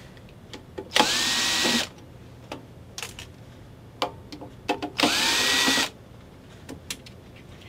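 Cordless drill/driver backing screws out of a sheet-metal appliance case: two runs of about a second each, the motor whine rising quickly and then holding steady, with light clicks between them.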